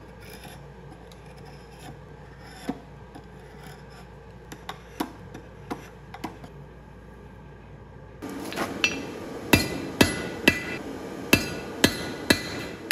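A drawknife shaves a wooden stick in faint scraping strokes with a few light knocks. About eight seconds in, hammer blows on red-hot steel on an anvil take over: loud sharp strikes about twice a second.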